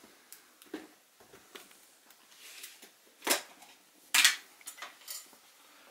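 Light knocks and clinks of ink jars and pots being handled on the studio bench, with two louder sharp knocks about three and four seconds in.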